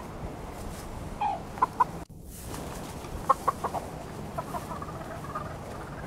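Hens clucking: a few short calls, then after a brief drop-out a quick run of clucks followed by softer, quieter chatter.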